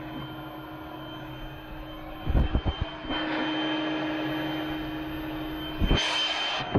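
Compressed air rushing steadily through a homemade smoke tester and its air hose, pushing smoke into a UTV's snorkel and air box for a leak test, over a constant hum. A few low thumps come about two and a half seconds in, the airflow grows stronger a little after, and a louder rush of air comes near the end.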